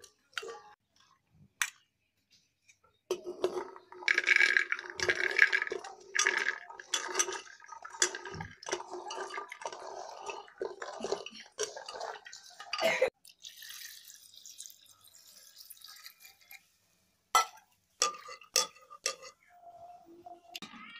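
Soaked chickpeas being stirred and rubbed by hand in water in a stainless steel bowl: water splashing and the peas clattering against the metal, busiest in the first half, with a few sharp clinks near the end.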